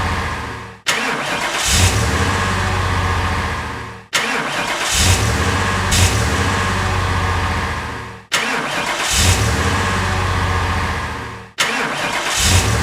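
Car engine starting, catching with a brief burst, running a few seconds and dying away. The same sound effect repeats about every three to four seconds.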